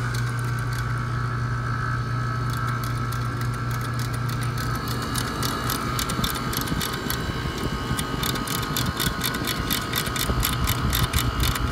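Ratchet service-valve wrench clicking rapidly as it turns the stem of a refrigeration compressor's service valve, the clicks getting denser in the second half. A steady low machine hum runs underneath.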